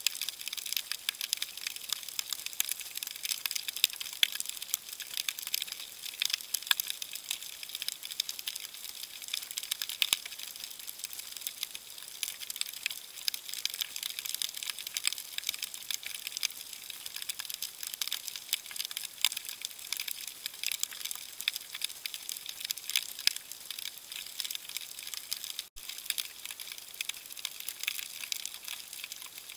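Steady underwater crackling: countless tiny clicks and snaps, thin and high, with no deep sound under them.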